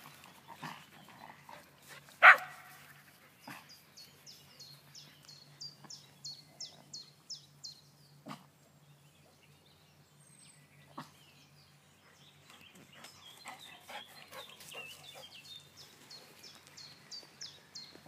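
A dog barks once, short and loud, about two seconds in. The rest is quieter, with a few faint short sounds and a high chirping repeated about three times a second for several seconds.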